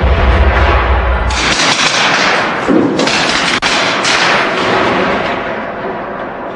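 Training explosive charges detonating: the deep rumbling tail of one blast, then three more sharp blasts over the next few seconds, each dying away slowly.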